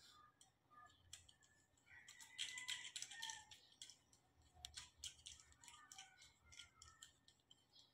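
Faint clicks and scrapes of a small flat-head screwdriver working the screw on the plastic battery box of a urinal flush sensor, with a few short squeaks.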